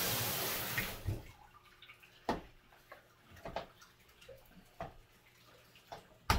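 Handheld shower head spraying water in a bathtub while rinsing a dog, shut off abruptly about a second in. Then water drips and a few light knocks, with one sharp click near the end.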